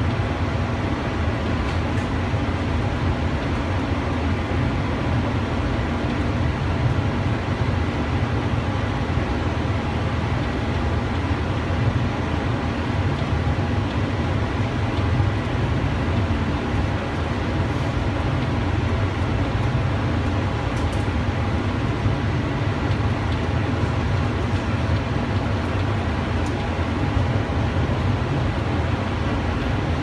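Steady running noise heard from inside a cable-drawn Doppelmayr Cable Liner people-mover car travelling along its guideway: an even low rumble with a faint steady whine above it.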